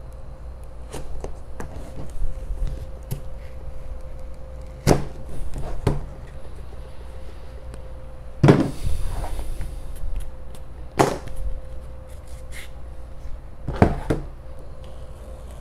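Scattered knocks, taps and handling noises from hands and a knife working on a car's interior trim, with louder thuds about 5, 8.5, 11 and 14 seconds in, the one at 8.5 seconds followed by a brief scraping hiss. A faint steady hum runs underneath.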